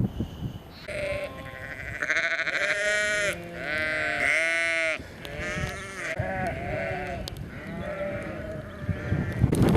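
A flock of ewes and lambs bleating, many calls overlapping, some lower-pitched and some higher.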